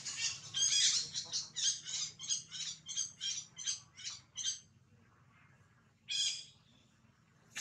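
Baby macaque giving a quick run of high-pitched squeaking calls, about three a second, that stops after about four and a half seconds, followed by one more call about six seconds in.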